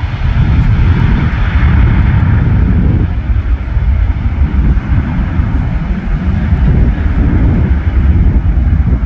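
Boeing C-17 Globemaster III's four Pratt & Whitney F117 turbofan engines at takeoff power as the jet climbs away just after liftoff: a loud, steady jet roar with a heavy deep rumble.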